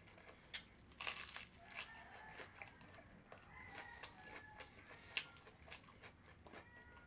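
Close-up crunching and tearing of crispy fried chicken being bitten and chewed, a run of sharp crackles with the loudest about a second in and another just after five seconds. Faint chickens cluck in the background.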